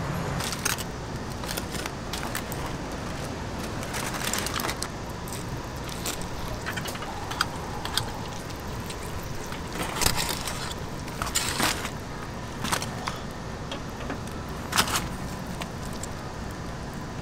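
Food-handling sounds: crinkling aluminium foil and a knife cutting through barbecued pork, heard as scattered short clicks and crackles over a steady low background rumble.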